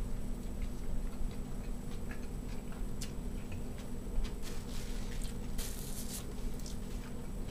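A person chewing a bite of a deep-fried hot dog in a bun topped with blue cheese and minced celery: small wet clicks and crunchy crackles, busier about five to six seconds in. A steady low hum runs underneath.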